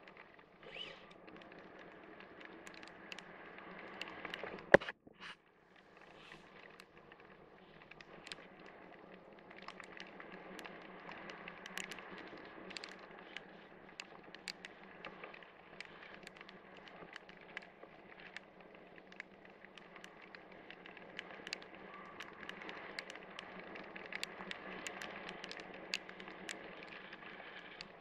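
Rain striking the camera and wind noise during a parachute descent under canopy: a faint steady hiss with scattered sharp ticks of raindrops. One louder click about five seconds in, followed by a brief drop in sound.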